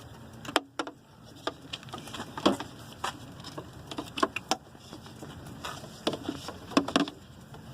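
Irregular clicks and light knocks from wires and plastic connectors being handled, a dozen or so uneven taps with no steady rhythm.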